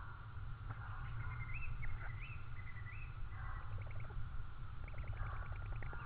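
A songbird singing: a few short sliding whistled notes, then two quick rattling trills, over a steady low hum.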